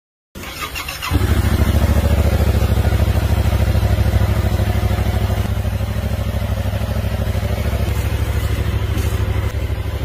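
2022 Yamaha R7's 689 cc parallel-twin engine starting: a brief crank, catching about a second in, then idling steadily with an even low pulse.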